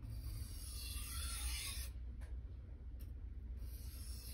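Steel knife blade sliding lightly across a wet Japanese waterstone in a few hissing passes, with short breaks about two and three seconds in: light strokes that let the stone's grit grind off the burr.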